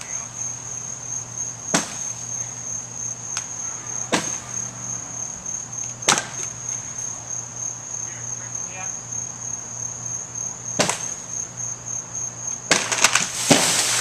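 Single sharp strikes on wood every two seconds or so, then near the end a quick run of loud cracks as the hurricane-split tree limb breaks further and drops toward the ground. A steady high insect trill runs underneath.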